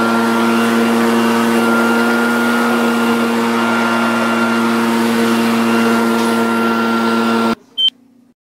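A steady electrical hum with a buzzing tone runs loudly, then cuts off abruptly near the end. Right after it comes one short high-pitched beep.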